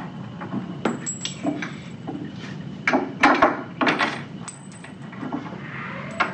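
Metal magneto parts and hand tools clinking and knocking on a wooden workbench as a Bendix S4LN-21 aircraft magneto is reassembled: a string of irregular clicks and taps, loudest about three to four seconds in.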